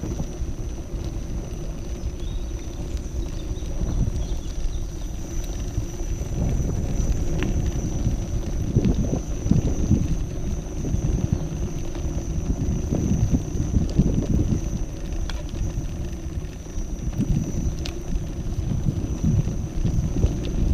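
Kingsong KS14 electric unicycle rolling uphill over cobblestones: a steady, uneven low rumble from the tyre on the stones, with a faint steady high tone and a few faint ticks.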